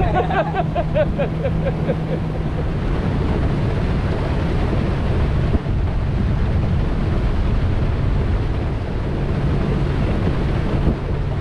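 A boat's engine running steadily as it moves across open water, with heavy wind noise on the microphone.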